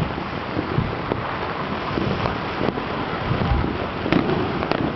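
Fireworks and firecrackers going off across the city, a continuous crackling din broken by sharper bangs every second or so, a louder one about four seconds in.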